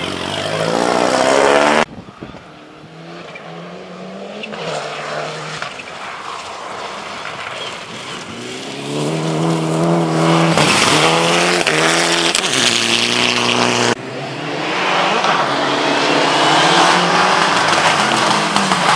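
Rally car engines accelerating hard, the pitch climbing and dropping back with each gear change, in several short clips joined by abrupt cuts. One of the cars is a Mitsubishi Lancer Evolution.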